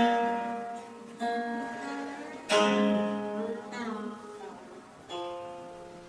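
Chaozhou zheng (Chinese plucked zither) played solo: separate plucked notes and chords about every second and a half, each ringing and then fading, with a pressed pitch bend on a ringing note about two-thirds of the way through.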